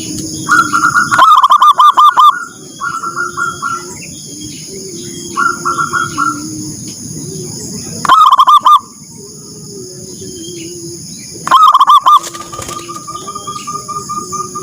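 Zebra doves (perkutut) cooing: calls made of rapid strings of short notes, loudest in three bursts about a second in, around eight seconds and near twelve seconds, with quieter calls between.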